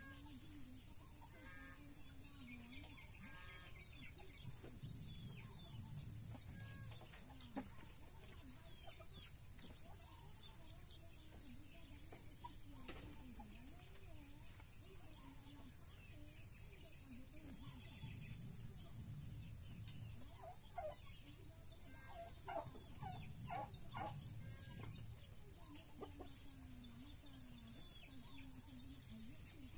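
Faint clucking and calling of farm poultry, in scattered short bursts that cluster near the start and again about two-thirds of the way through.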